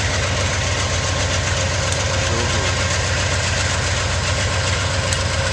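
Amtrak GE Genesis P42DC diesel locomotives idling at a standstill, their 16-cylinder diesel engines running steadily and loudly.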